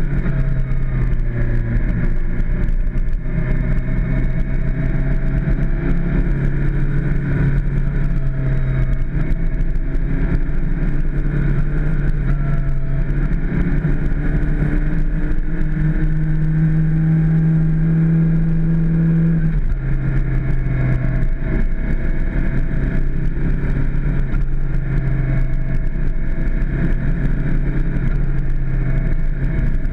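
Suzuki GSX-R600 inline-four engine running under way at steady revs, heard from on the bike; its pitch climbs slowly, steps up, then drops abruptly about two-thirds of the way through.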